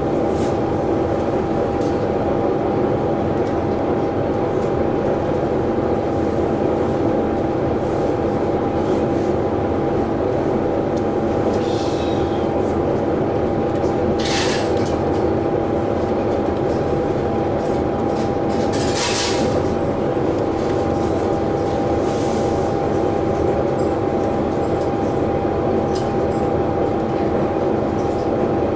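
Diesel railcar's engine idling while the train stands at a station: a steady drone with a constant hum in it. About halfway through come two short hisses.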